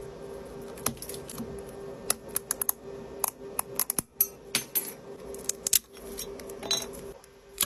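Back glass of an iPhone 8 being chipped and scraped off with a hand tool: irregular sharp clicks and crackles of breaking glass. A steady hum runs underneath and stops near the end.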